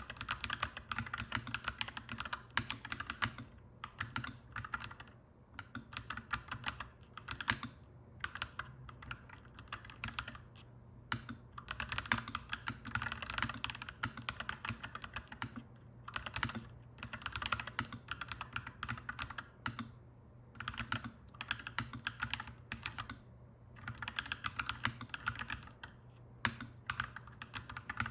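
Clacky mechanical keyboard being typed on in quick bursts of keystrokes, broken by short pauses, over a steady low hum.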